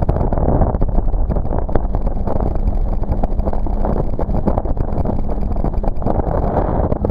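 Jet ski engine running steadily, with wind buffeting the microphone.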